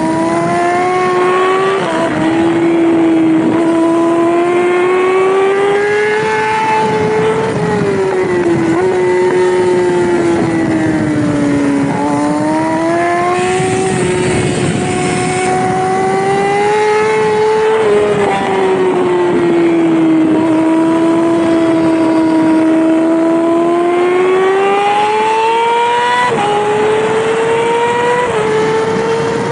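Yamaha R6 600cc inline-four race bike engine at high revs, its note climbing as it pulls through each gear and dropping sharply at each upshift. Near the end the pitch jumps up twice, as on downshifts.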